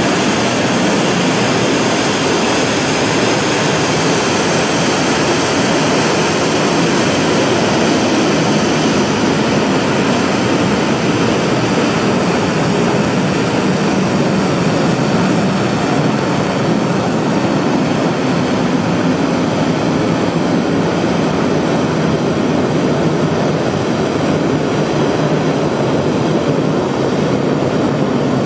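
Korean launch vehicle's 7-ton-class liquid-oxygen/kerosene third-stage rocket engine firing continuously on a test stand during a 320-second burn: a loud, steady rushing noise that holds without change.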